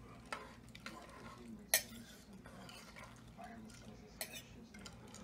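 A spoon stirring soup in a small Rival Crock-Pot's stoneware crock, with scattered clinks and knocks of the spoon against the crock, the loudest nearly two seconds in.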